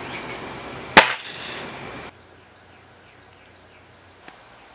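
Scoped air rifle firing a single pellet shot: one sharp crack about a second in, over a steady high insect chirring. The outdoor sound cuts off abruptly about two seconds in, leaving quiet room tone.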